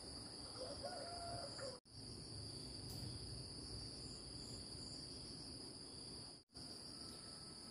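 Insects chirring steadily in two high, unbroken tones, with a faint short call about a second in. The whole sound cuts out abruptly twice, for a moment each time.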